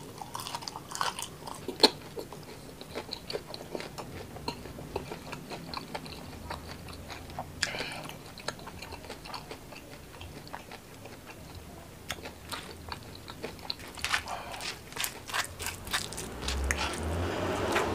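Close-up biting and chewing of crispy batter-fried mushrooms, with sharp crackles from the crust, loudest about two seconds in. Near the end there is a denser run of crunches, then a soft wet rustle as a piece is dragged through chili sambal.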